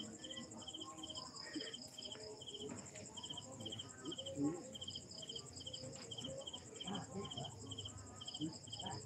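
Night insects calling: short cricket-like chirps, each a quick trill, repeating about two to three times a second over a steady, high, fast-pulsing buzz.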